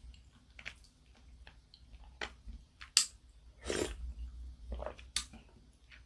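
Close-miked eating sounds: soft wet chewing of a mouthful of soft tofu and ramen, with a few sharp clicks of the spoon and chopsticks against the bowl, the loudest about three seconds in.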